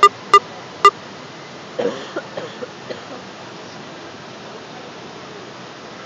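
Three short, loud beeps in quick succession within the first second, over a steady hiss. A few brief, weaker sounds follow about two seconds in.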